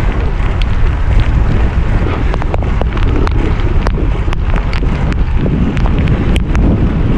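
Wind buffeting the camera's microphone while cycling on a wet road: a loud, steady low rumble with scattered sharp ticks through it.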